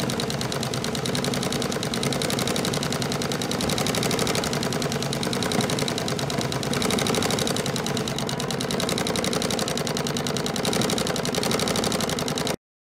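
Industrial sewing machine running at speed, its needle stitching a fast, even chatter while a terry-cloth bib is guided under it by hand. It stops abruptly just before the end.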